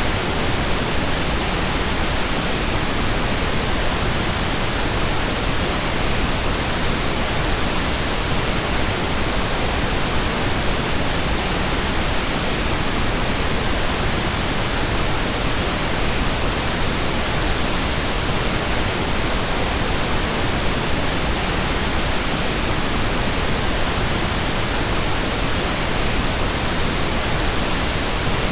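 Pink noise: a steady, even hiss spread over all frequencies, unchanging throughout.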